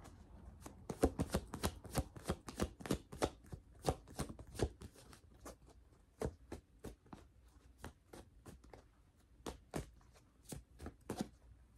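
A tarot deck being shuffled by hand: a quick run of papery card snaps and taps, dense for the first half, then sparser with scattered taps and a short flurry near the end.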